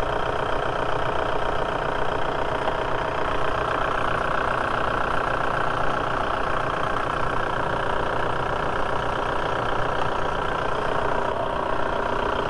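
Volkswagen 1.9L ALH TDI four-cylinder diesel engine idling steadily while it warms up to operating temperature after a thermostat replacement.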